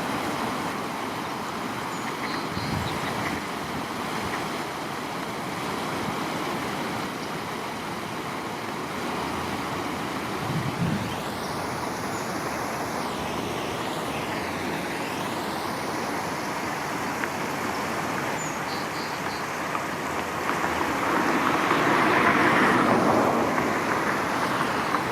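Steady rush of distant road traffic, swelling louder for a few seconds near the end as a vehicle passes, with a couple of faint short bird chirps.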